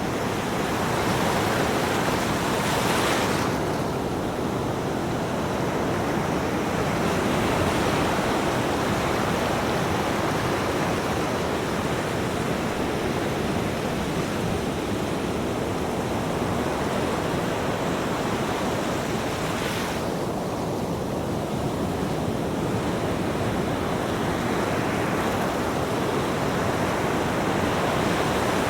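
Ocean waves breaking and washing as surf, a steady rushing noise that swells and eases slowly.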